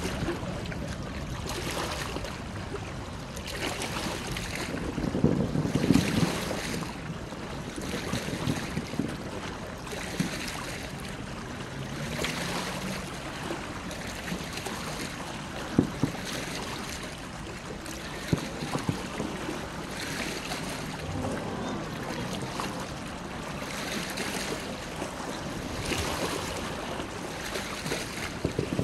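Wind gusting on a phone microphone over water lapping, with a series of faint distant fireworks bursts every second or two.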